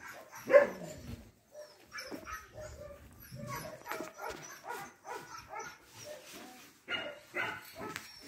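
Dogs barking: one loud bark about half a second in, then a run of shorter, quieter barks.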